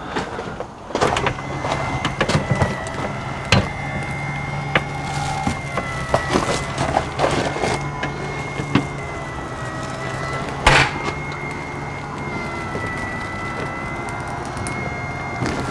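LCI electric RV awning motor running as the awning rolls out: a steady hum with a whine over it, starting about a second in. Scattered clicks and knocks from the awning hardware, one sharp knock about ten seconds in.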